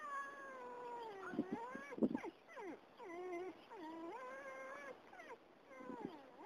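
A dog whining and whimpering in long, wavering whines that slide down and back up in pitch, with a short sharp yip about two seconds in. The whines are the sound of a dog eager to get to a horse it has spotted.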